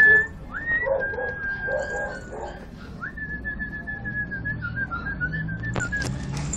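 A person whistling a few long, level notes, each starting with a quick upward slide. The last note wavers and breaks up, and a sharp click comes near the end.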